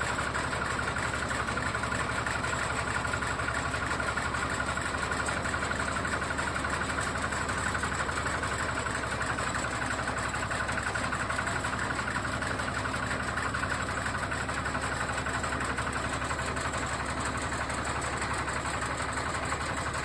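A 4LZ-1.2 mini rice combine harvester's engine runs steadily at a constant speed, with a fine rapid pulse and no change in pitch or level.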